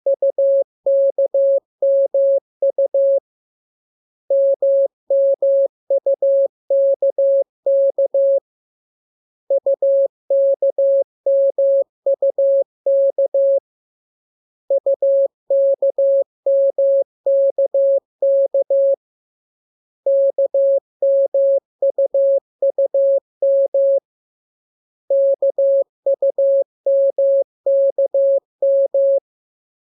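Morse code sent as a single steady beeping tone in dots and dashes, in groups of about four seconds with a pause of about a second between groups: practice groups of the letters K, M and U for learning to copy by ear.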